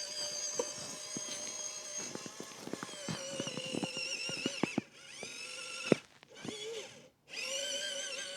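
WPL C84 RC car's small electric motor and gearbox whining under throttle, with rapid clicks and crunches from the tyres and chassis over rough ground. It cuts out briefly several times, rising in pitch as it spins back up about five seconds in.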